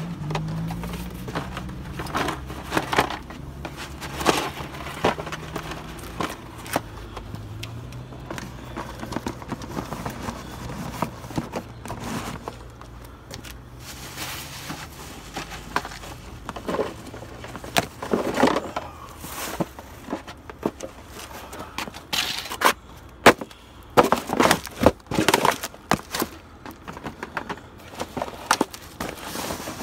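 Cardboard shoe boxes being handled, folded and crushed underfoot on pavement: irregular crinkles, scrapes and crunches, busiest in the second half. A low engine hum runs underneath through the first half.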